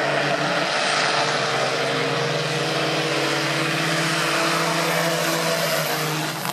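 Diesel engines of two big-rig semi trucks running at full throttle in a drag race, loud and steady, pouring out black smoke.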